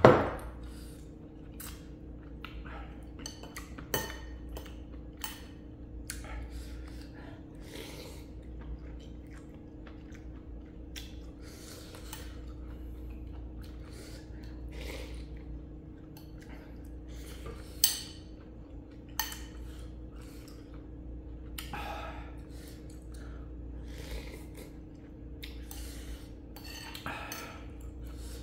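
Eating ramen: utensils clink and tap against a bowl in scattered sharp clicks, the loudest near the start and at about 18 seconds, between stretches of noodle slurping and chewing. A faint steady hum runs underneath.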